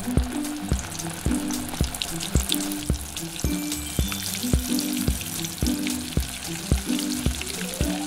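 Crackling frying sizzle, a cooking sound effect since the toy pan itself makes none, over light background music with a steady beat about twice a second.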